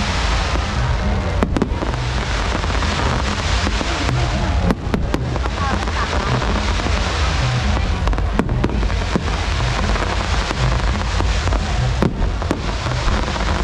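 Festival fireworks finale: dense crackling with a few sharp bangs a few seconds apart, over loud electronic dance music with a heavy bass.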